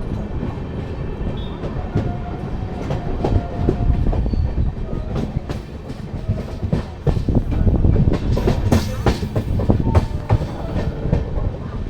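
Train running on the line, a heavy rumble with the wheels clattering over the rail joints. It grows louder about seven seconds in.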